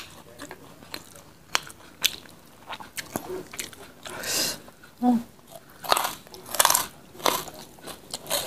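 Close-miked eating by hand: sharp clicks in the first few seconds, then repeated crunchy bites and chewing of mouthfuls of jengkol with sambal from about four seconds in.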